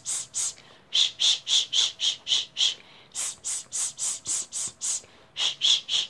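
A woman repeating voiceless hissing speech sounds in quick short puffs, about five a second, in alternating runs of sharp "s" hisses and lower "sh" hushes, each run lasting a second or two with short pauses between. This is an articulation drill.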